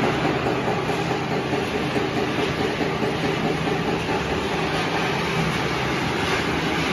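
Salad-stick and corn-snack production line machinery running: a steady mechanical hum and rush of motors and conveyors.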